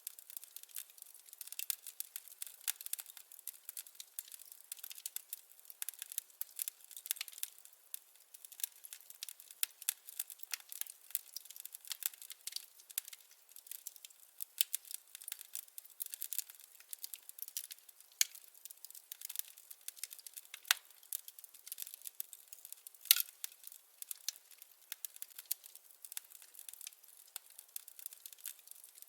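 Wood fire crackling: a steady stream of small irregular snaps and pops, with a sharper, louder pop about two-thirds of the way through.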